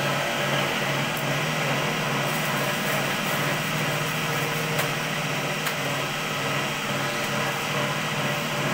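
Cotton candy machine running, its motor spinning the head with a steady hum.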